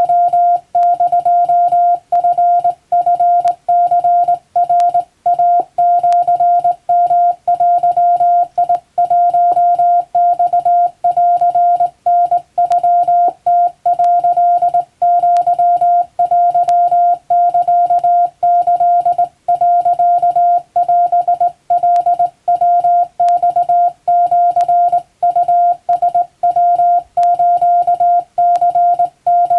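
Japanese (wabun) Morse code: a single steady beep tone keyed on and off in rapid dots and dashes, with short breaks between characters.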